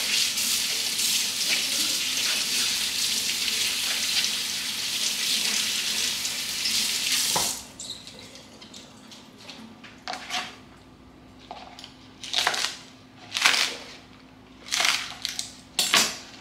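Kitchen tap running into a sink, cutting off suddenly about seven and a half seconds in. After it come five or six short swishing sounds.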